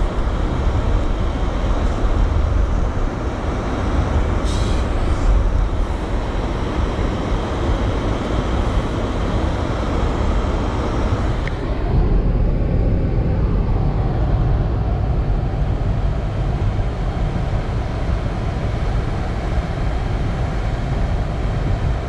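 Steady rumble of tyre and wind noise inside a car's cabin, driving at about 40 mph on a snow-dusted road in strong blizzard winds. The higher hiss drops away about halfway through, leaving a low, dull rumble.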